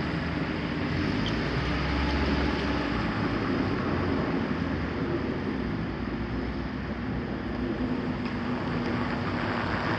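Steady vehicle rumble with a low hum.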